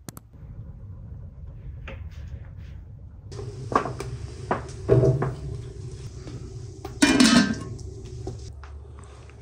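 Large aluminium cooking pot knocking and scraping on a flat iron wood-stove top, with a few separate knocks and then a louder ringing metallic clatter as the pot is settled and covered, over a low steady rumble.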